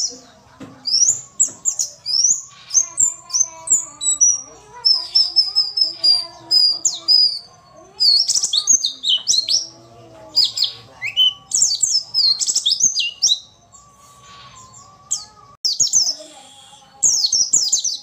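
Caged white-eye (pleci) singing: fast bursts of high, sliding chirps. About five to seven seconds in comes a run of evenly repeated notes, and near the end there is a quieter stretch before the song picks up again. The uploader presents it as a female pleci's song used to set males singing.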